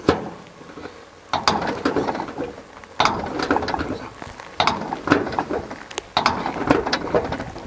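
Scissor-type (accordion) hand riveter worked in about four squeezing strokes, setting a blind rivet in a steel wheelbarrow body. Each stroke is a run of sharp metallic clicks and rattles as the jaws grip and pull the rivet's mandrel.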